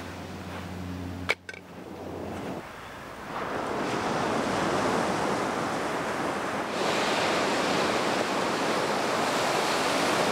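Surf breaking and washing up a beach, a steady rushing that swells about three seconds in and louder again near seven seconds. Before it, a low steady hum cuts off with a sharp click about a second in.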